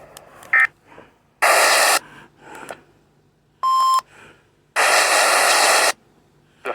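Emergency Alert System broadcast tones: two loud, harsh digital data-burst screeches, the second about twice as long as the first. A short electronic beep around 1 kHz falls between them, with a brief blip near the end.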